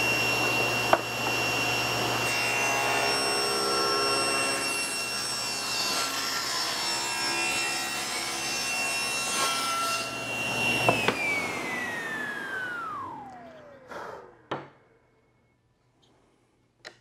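SawStop table saw running at full speed while a board is pushed through the blade for a rip cut. About eleven seconds in the saw is switched off, and the blade's whine falls steadily in pitch as it spins down, with a couple of sharp knocks as it fades out.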